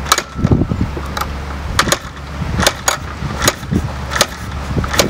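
Vintage scrambler motorcycle being kick-started on its stand: a string of sharp clacks, several kicks, as the engine is spun over without yet catching.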